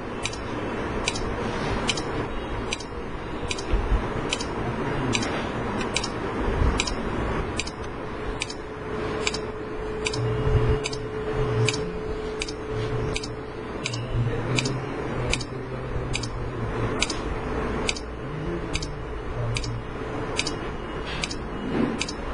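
Steady, even ticking, about two ticks a second, over a low background rumble.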